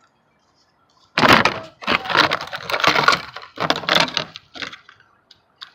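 Hand tools being handled: metal pliers and a tire plug insertion tool clicking and rattling, in several dense bursts from about a second in until near the end.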